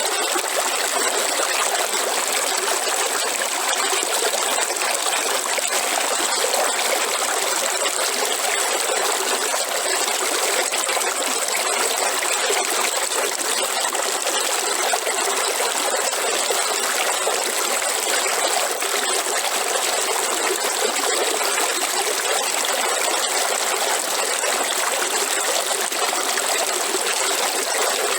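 River water running over rocks: a steady rushing and trickling with no change in level.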